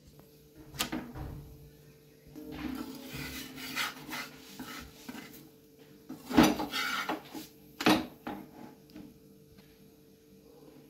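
Cooking handling sounds at an iron tawa: a few sharp knocks of metal on the tawa, the loudest two about six and eight seconds in, with rustling and scraping as the puran poli is laid on and moved with a metal spatula. A faint steady hum runs underneath.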